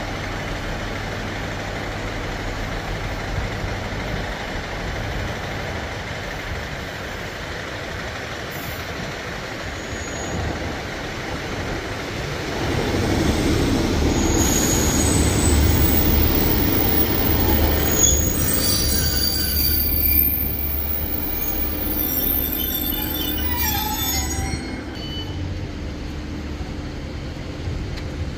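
Northern diesel multiple unit running past along the platform: a low engine-and-wheel rumble swells to its loudest about halfway through, with high squeals from the wheels on the rails in the second half as it goes by, then fades.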